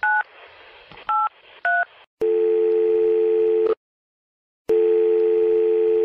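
Telephone touch-tone dialling: three short keypad beeps in the first two seconds. Then the ringing tone of a call being placed, two long steady tones about a second and a half each, with a second of silence between them.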